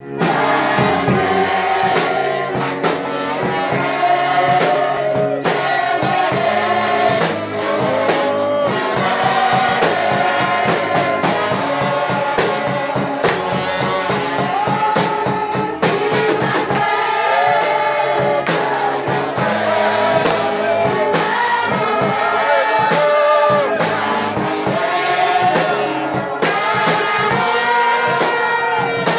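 A song: a group of voices singing together over instrumental backing with a steady beat.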